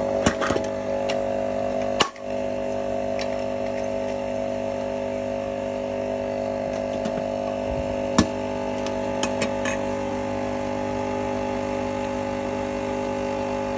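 Multi-capsule coffee machine's pump running steadily as it dispenses hot water into a cup, with a brief dip about two seconds in. A few light clicks sound over it.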